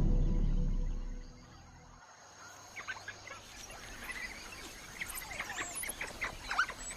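Low music fades out in the first second and a half, then a run of short, high chirping calls, some sliding up or down in pitch, comes thickly through the rest.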